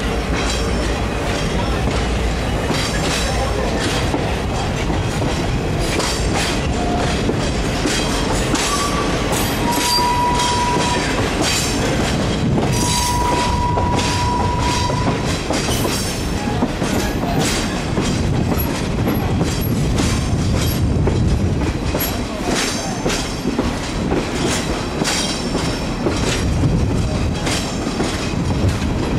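Passenger car riding on the rails, heard from aboard: a steady rumble of the wheels with repeated clicking over the rail joints. A couple of brief high wheel squeals come about a third of the way in and again near the middle.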